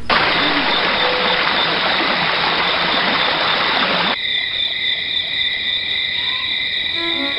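A steady rushing noise that cuts off suddenly about four seconds in, leaving a sustained high drone of several held tones.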